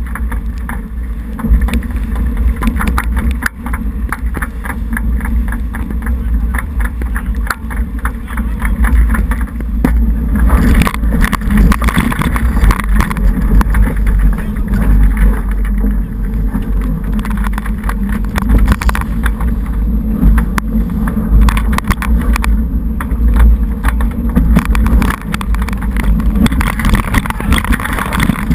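Wind buffeting a GoPro Hero2's microphone in its waterproof housing, over water rushing and splashing past a J80 sailboat's hull heeled in 14–16 knots of wind, with frequent small crackles and knocks. It grows louder from about ten seconds in.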